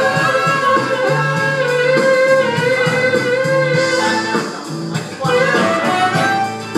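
Blues jam with a harmonica playing long, held notes over a steady, repeating bass accompaniment.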